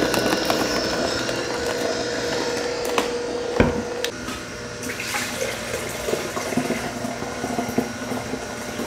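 Nama slow-press juicer switching on and running, its auger crushing apples while juice streams from the spout into a pitcher. There is a sharp knock about three seconds in and another half a second later.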